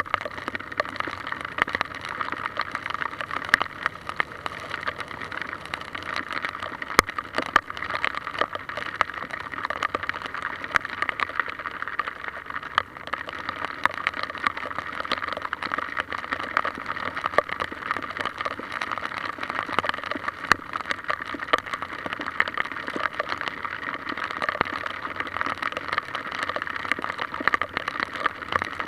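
Water running in a stream or cascade, a steady rush with many small sharp ticks and splashes scattered through it.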